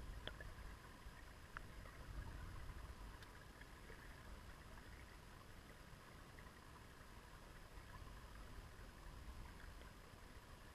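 Faint underwater sound of a shallow river flowing over a pebble bed: a steady low rumble and hiss, muffled as heard through the camera's housing beneath the surface, with a few faint clicks in the first few seconds.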